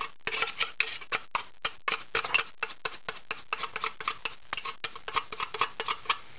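Tin of tuna being emptied into a bowl: the loose metal lid is pressed and scraped against the inside of the can, making a rapid, irregular run of metallic clicks and scrapes.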